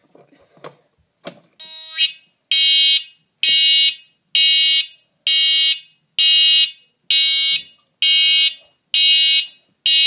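Piezo buzzer of a homemade fire alarm panel sounding a pulsing alarm: a very loud, high-pitched beep repeating a little over once a second, in march-time fashion. A few clicks of the panel's switch being handled come just before the beeping starts.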